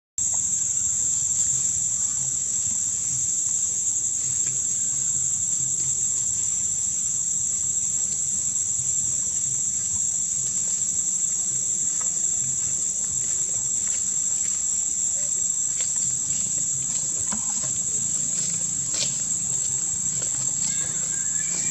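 Steady, high-pitched drone of an insect chorus, unbroken.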